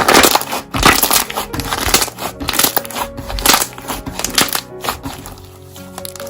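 Slime being pressed and squeezed by hand, making dense crunchy crackles that thin out near the end, over soft piano background music.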